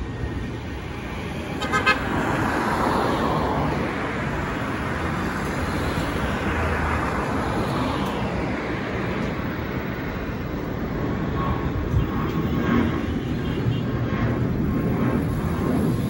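Rushing noise of a passing vehicle, its pitch falling slowly over several seconds, with a brief horn-like toot about two seconds in.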